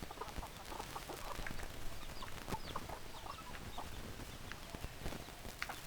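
A flock of chickens clucking, many short overlapping calls, with a few sharp knocks among them.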